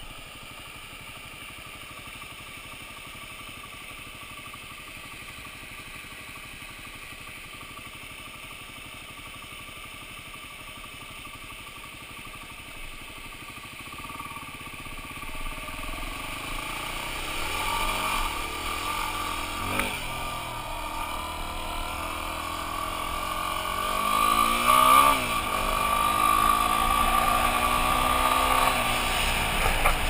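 Dirt bike engine running at low, steady revs, then from about halfway through growing louder as it accelerates, its pitch climbing and dropping with each gear change and loudest a few seconds before the end.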